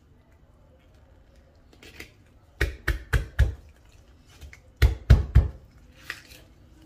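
Kitchen knife chopping through a mackerel behind the head and striking a glass cutting board: a quick run of four sharp knocks, then three more about a second later, with softer scraping of the blade before and after.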